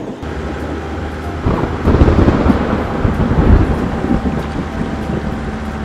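Animated sound effects: a truck engine running steadily, with a rumble of thunder swelling about a second and a half in and easing off after about four seconds.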